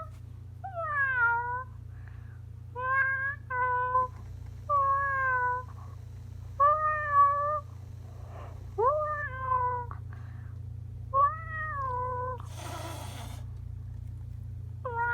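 Meowing: about seven drawn-out meows at uneven intervals, most sliding down in pitch at the end, with a short hiss near the end and a steady low hum underneath.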